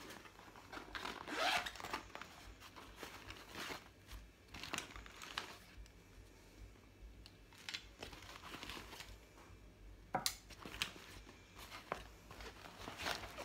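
Plastic bags rustling and crinkling as they are handled and opened, in irregular bursts with a few sharp clicks; the loudest rustle comes about a second and a half in.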